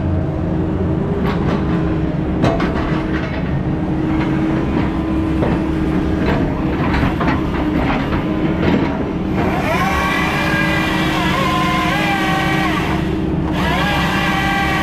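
Heavy logging equipment's engine running steadily, with scattered knocks and clanks. From about nine seconds in, a higher wavering whine of several tones joins, breaks off briefly and comes back near the end.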